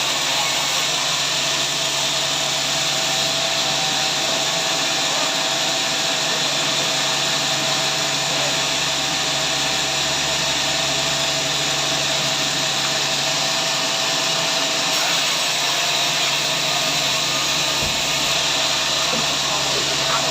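Sawmill machinery running with a steady, even whir and a faint hum.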